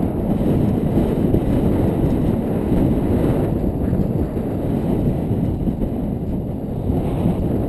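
Wind buffeting the microphone of a camera on a moving road bike: a steady, deep rush of air.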